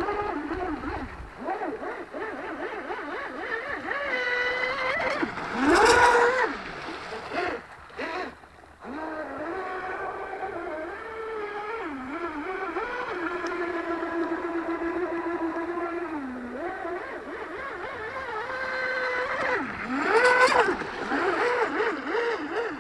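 Radio-controlled hydroplane's 3200KV brushless electric motor whining at speed, its pitch rising and falling with the throttle. It is loudest as the boat passes close about six seconds in and again near the end, and it cuts out briefly about eight seconds in.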